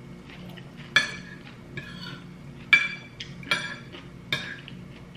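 Metal spoon and fork clinking against a plate while eating: four sharp clinks spread over a few seconds, each with a short ring, over a faint steady low hum.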